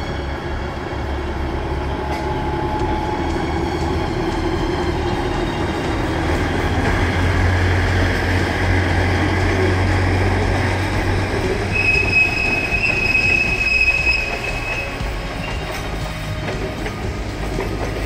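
Alishan Forest Railway diesel train passing close by: the red DL-43 locomotive's engine gives a low steady drone as it hauls the passenger cars past, with the wheels rolling on the rails. About twelve seconds in, a high wheel squeal rings out for about three seconds.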